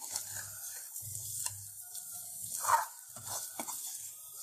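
Metal spatula stirring fried cabbage balls through thick gravy in a steel kadai, with soft squelching and scattered scrapes against the pan. A louder stroke against the pan comes about two and a half seconds in.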